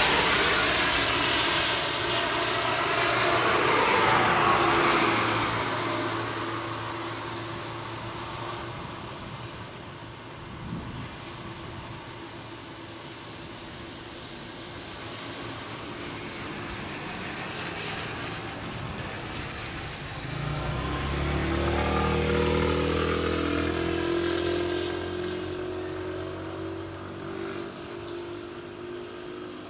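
Motor vehicles passing by. One swells and fades in the first six seconds. A second, with a low engine hum, swells about twenty seconds in and fades toward the end.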